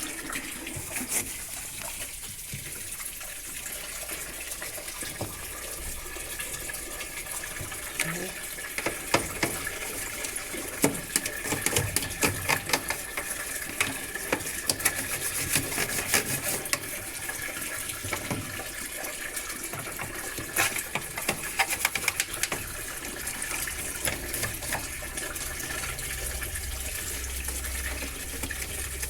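Water running steadily, as from a tap or hose, with repeated knocks and clatter in the middle stretch.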